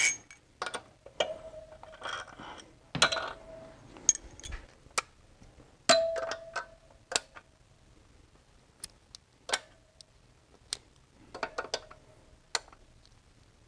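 Scattered metal clicks and clinks, a few of them ringing briefly, as the loosened head bolts and their washers of a BMW M54 straight-six are drawn out of the cylinder head with a socket on an extension.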